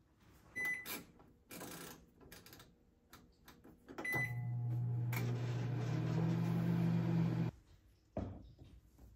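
Microwave oven: short beeps from its control panel as the start dial is pressed, then the oven runs with a steady low hum for about three seconds and cuts off suddenly. Near the end, a thump and rustle of a cardboard meal box being handled.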